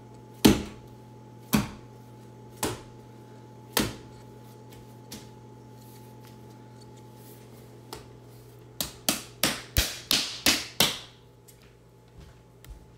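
Ball of pizza dough being tucked and rounded on a granite countertop: sharp slaps of dough and hands against the stone, about one a second at first, then a quick run of eight or so near the end. A faint steady hum lies underneath.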